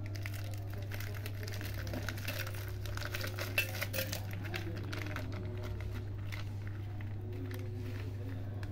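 Plastic milk pouch crinkling as it is squeezed and emptied into a steel mixer jar, the crackles mostly in the first half. A steady low hum runs underneath.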